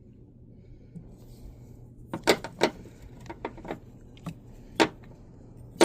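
Hard plastic and metal engine parts being handled during ignition coil removal: a string of short, sharp clicks and knocks, starting about two seconds in.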